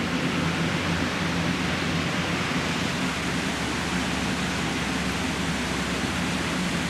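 Steady hiss with a low hum underneath, unbroken and even throughout.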